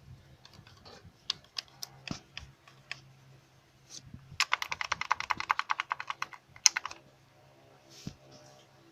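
Metallic rattle from the outer timing chain of a D4CB diesel engine: scattered sharp clicks, then about two and a half seconds of rapid, evenly spaced clattering at about a dozen clicks a second, over a faint low hum. The rattle is the sign of a worn outer timing chain, which replacing the chain cured.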